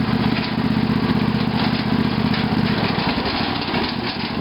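Craftsman lawn tractor's Briggs & Stratton 18.5 Intek engine running steadily as the tractor drives along a woods trail. Its note weakens a little about three seconds in.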